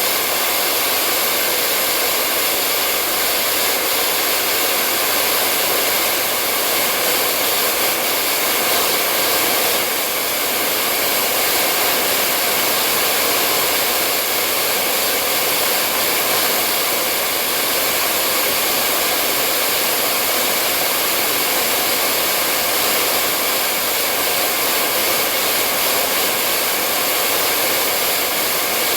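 Hair dryer running steadily: an even rush of blown air with a faint motor whine, unchanging throughout.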